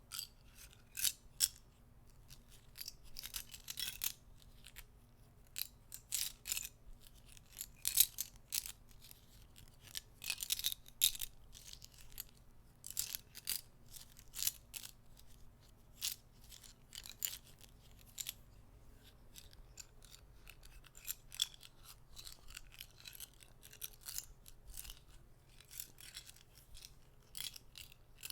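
Soft clicking of small objects, in irregular single clicks and quick runs of several, a few louder than the rest.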